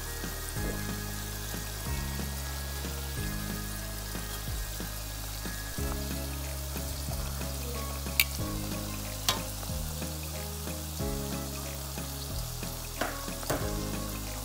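Chicken skin deep-frying in hot oil, a steady sizzle, while a slotted spatula stirs the pieces and knocks sharply against the pan a few times, loudest a little past halfway.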